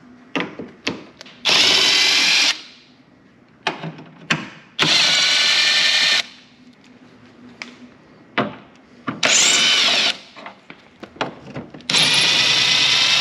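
Kobalt 24V cordless driver with a socket extension, whirring in four short runs of about a second each, backing out the 7 mm bolts that hold a factory headlight. Small clicks and knocks fall between the runs.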